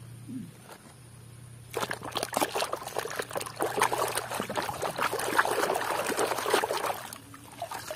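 A muddy toy being scrubbed in a basin of soapy water: rapid sloshing and splashing that starts about two seconds in and stops shortly before the end.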